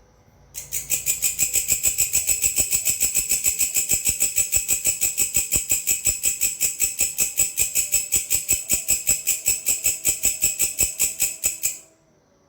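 Grasshopper (belalang) calling: a steady train of sharp, high rhythmic chirps, about six or seven a second. It starts about half a second in and stops abruptly near the end.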